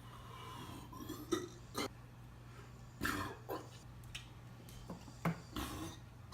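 Several short, quiet burps from a man, spaced out over a few seconds, over a steady low hum.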